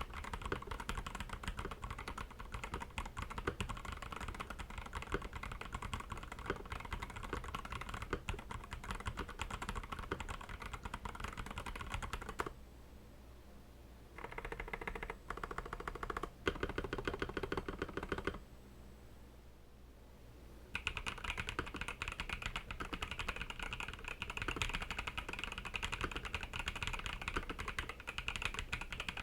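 Typing on an Akko 5075B Plus mechanical keyboard: rapid, steady keystroke clacks in three stretches with short pauses between, one for each switch in turn: stock Akko CS Crystal linears, then V3 Cream Yellow Pro linears, then V3 Cream Blue Pro tactiles. The last stretch sounds brighter than the first two.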